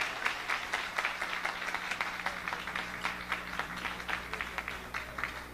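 Audience applauding, many hands clapping at once, the clapping gradually thinning out and growing quieter near the end.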